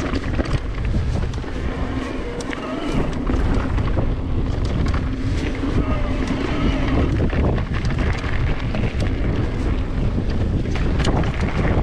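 Wind buffeting an action camera's microphone while riding an electric mountain bike over a dirt singletrack, with tyre rumble and frequent short rattles and clicks from the bike over bumps and stones.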